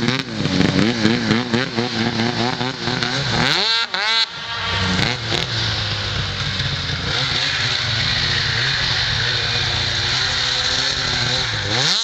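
Arctic Cat ZR 900 snowmobile's two-stroke triple with aftermarket pipes, revving up and down, then a sharp rising rev about four seconds in. After that it runs steadily at high revs as the sled pulls away, with another sharp rising rev near the end.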